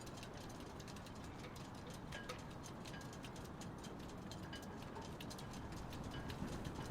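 Small-harbour ambience: many irregular light clicks and ticks, several a second, over a steady low rumbling wash.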